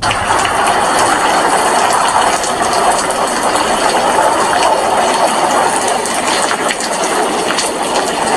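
Heavy rain falling steadily: a dense, even hiss scattered with many small drop ticks.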